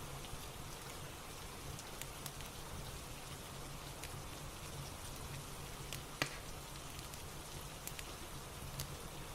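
Rain falling steadily, with scattered light ticks and one sharper pop about six seconds in.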